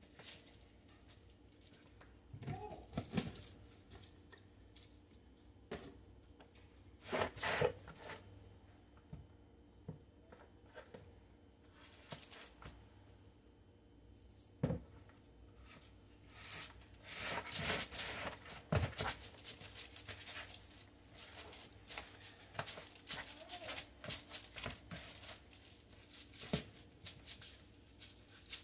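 Hands mixing and kneading soft, still-wet yeast dough for cinnamon rolls, giving irregular bursts of sticky handling noise that come more often in the second half.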